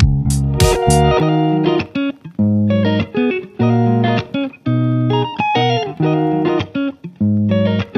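Background music led by guitar, played in short phrases with brief gaps between them.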